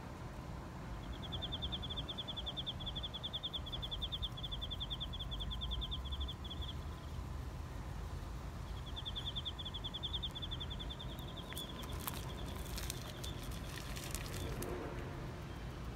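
A high, fast-pulsed trill from a bird or insect, in two long runs, over a steady low outdoor rumble. A burst of sharp scratchy clicks comes near the end, while the cat scratches itself with a hind paw.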